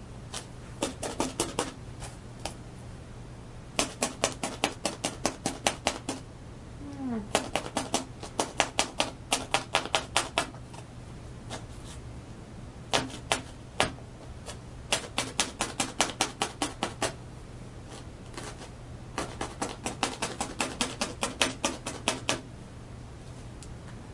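A felting needle jabbing wool roving through into the dissolving paper to tack it in place, making quick runs of sharp clicks several a second, in about six bursts with short pauses between, over a steady low electrical hum.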